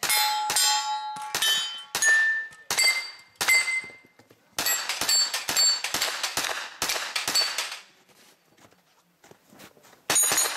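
Pistol-caliber carbine firing a string of shots at steel targets, each shot followed by the ringing clang of struck steel plates. The shots come about half a second apart at first and faster in the middle, then stop for about two seconds, with two more shots near the end.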